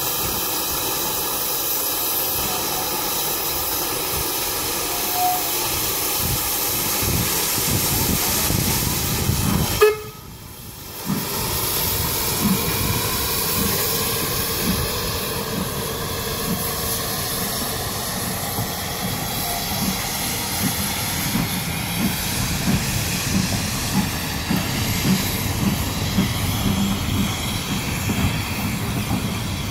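Double-headed steam locomotives, an AC16 and a PB15, passing close by with a steady hiss of steam, followed by wooden carriages rolling past with regular knocks of wheels over the rail joints. The sound drops out briefly about ten seconds in.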